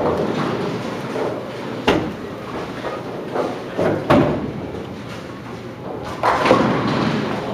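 Bowling-centre noise: two sharp knocks about two seconds apart and a few softer thuds, echoing over the hall's steady hum.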